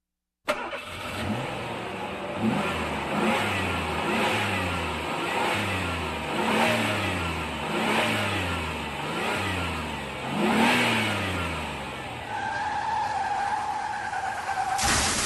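Car engine sound effect revving up and down over and over, about once a second, as if accelerating through repeated surges. Near the end it gives way to a steady high tone, then a sudden loud burst of noise.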